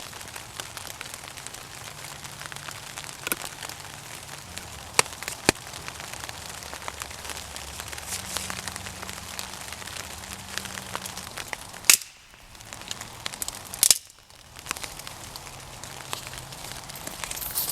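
Crackling rustle of hands wrapping tarred bank line around the end of a wooden bow to whip it, with scattered sharp clicks and snaps.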